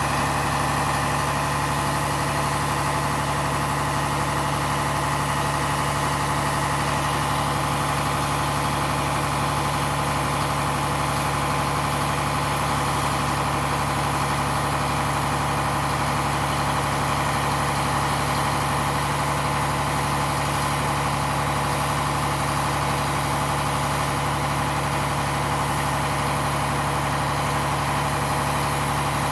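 Truck engine running steadily, driving the hydraulic pump of an Effer 210 truck-mounted knuckle-boom crane as the boom raises and extends on its hydraulic extensions.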